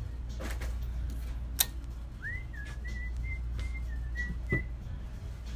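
A person whistling a short run of high notes at nearly one pitch, starting about two seconds in and lasting a couple of seconds. A sharp knock comes just before the whistling and a softer one near its end, over a steady low hum.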